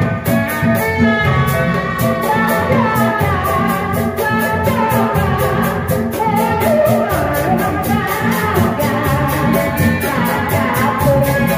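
A woman singing a melody through a microphone over a live tanji street band with a steady beat.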